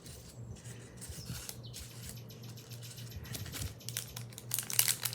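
Small bags crinkling and rustling as items are handled and taken out of them, with scattered light clicks; the crinkling gets busier and louder near the end.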